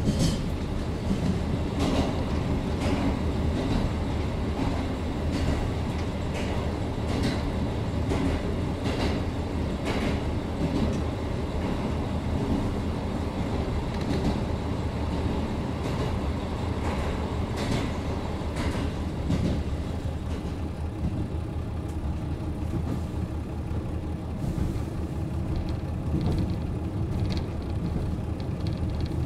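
JR Hokkaido KiHa 40 diesel railcar standing with its diesel engine idling, a steady low rumble, with a few short clicks and hisses at scattered moments.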